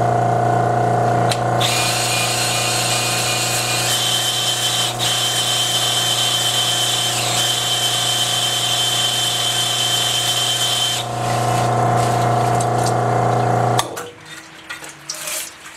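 Electric drill spinning a plateau brush, an abrasive-bristle hone, stroked through an oil-flooded cast-iron cylinder bore of a Willys L134 engine block to smooth the torn surface left by the honing stones. A steady motor hum, with a louder hiss and a high whine over most of it, stops suddenly near the end, leaving trickling oil and light clicks.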